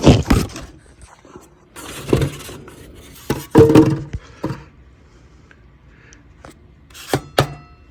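Knocks, clatter and rustling as a heavy boxed smoke alarm is handled and unpacked, with a few sharp clinks and a brief ringing clink near the end.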